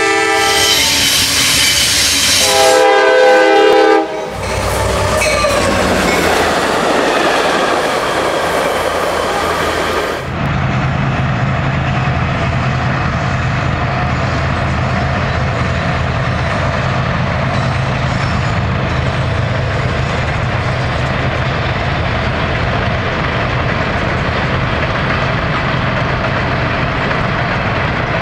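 Norfolk Southern diesel locomotives sounding their air horn at a grade crossing for about four seconds, with a short break partway, then the train rumbling past. About ten seconds in, it switches abruptly to the steady rumble and low hum of CSX coal hopper cars rolling by on the rails.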